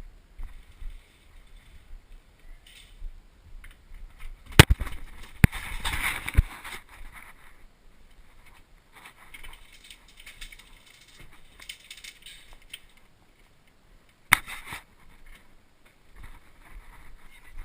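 Rustling handling or movement noise with a few sharp cracks: three close together about four to six seconds in, and one more near fourteen seconds.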